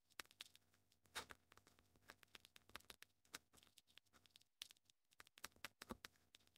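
Faint, irregular clicks of a computer keyboard being typed on.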